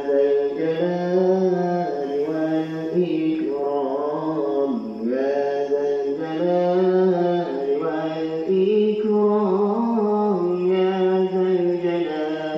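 A man's voice chanting zikir munajat, an Arabic devotional supplication sung in long, gently wavering held notes phrase after phrase, heard over the mosque's loudspeakers.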